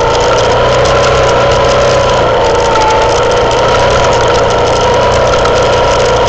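Herald Classic motorcycle engine running at steady low revs with a steady whine, under a constant patter of small clicks and rattles as the bike rolls slowly down a rocky track.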